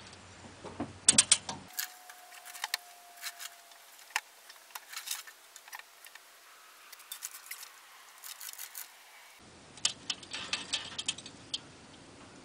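Manual chain hoist (chain fall) being worked: irregular metallic clicking and chain rattle, in clusters about a second in and again near the end.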